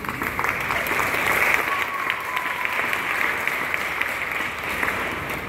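Audience applauding, a dense patter of claps that dies down near the end.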